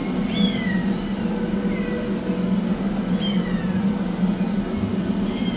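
Kittens meowing at a glass door, about six short, high calls that each fall in pitch, over a steady low hum.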